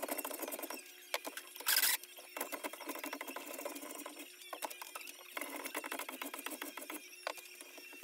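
Hand plane shaving a piece of wood held in a vise: three long rasping strokes separated by short pauses, with a brief loud burst of noise a little under two seconds in.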